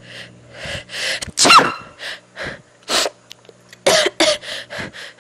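A woman sniffling and sobbing close to the microphone: a string of short, sharp breathy gasps and sniffs, with a loud wailing sob about a second and a half in.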